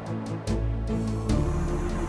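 Background music with sustained notes and a regular beat.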